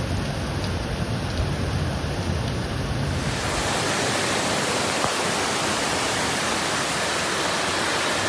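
Steady, loud rush of water from flooding and torrential rain. About three seconds in it cuts to a brighter, even rush with the deep rumble gone.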